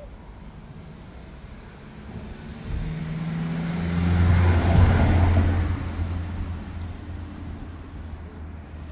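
A car driving past: engine hum and tyre noise build up, peak about four to five seconds in, then fade away.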